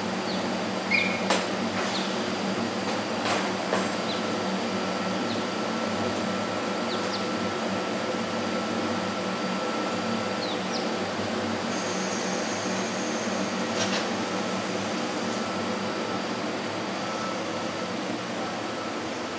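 Kintetsu 15200 series train standing at the platform, its air-conditioning and auxiliary equipment humming steadily with several held tones. A few sharp clicks come in the first four seconds.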